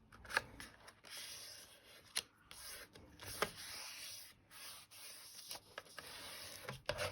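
Stiff patterned paper being folded corner to corner and creased by hand, fingers rubbing along the fold in several scraping strokes, with a few sharp ticks of paper.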